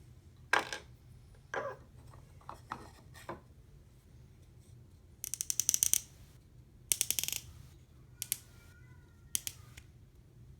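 Tobacco pipe stems and bowls being handled on a hard surface: scattered light clicks and knocks, with two short, rapid clicking rattles around the middle that are the loudest sounds.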